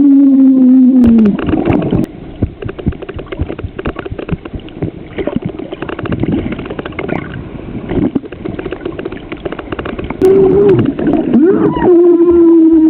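Muffled underwater gurgling and bubbling crackle, heard through a waterproof camera held in the sea. A gliding, theremin-like music tone fades out about a second in and comes back about ten seconds in, louder than the water.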